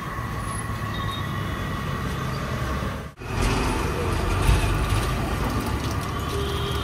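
Steady low rumble of roadside traffic and street noise, broken by a brief dropout about three seconds in.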